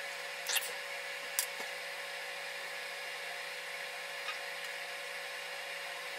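Steady background hum and hiss with a faint whine, broken by two short clicks about half a second and a second and a half in.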